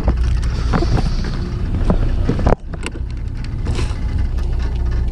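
Steady low rumble of a fishing boat's engine running, with wind on the microphone. The sound drops out abruptly a little past halfway and then carries on.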